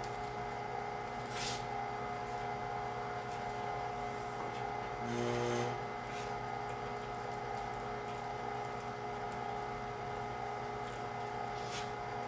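A Carnivore 1-horsepower electric meat grinder running steadily as ground pork is pushed through its stuffing tube into a collagen casing. A brief louder hum comes about five seconds in, and there are a couple of short hissing sounds.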